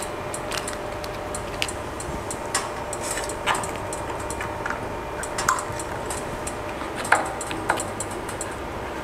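Scattered small plastic clicks and taps as a waterproof cable gland and its cap are handled and fitted onto a wireless bridge's port, irregular and a second or two apart, over a steady faint hum.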